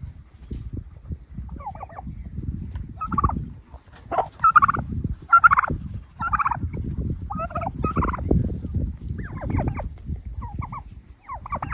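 Domestic turkey gobbling, a string of short rattling gobbles every second or so, over a steady low rumble.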